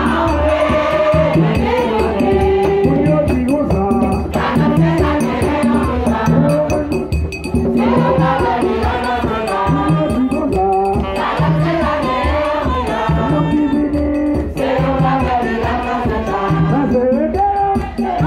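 Loud music with a large crowd singing together over a steady beat.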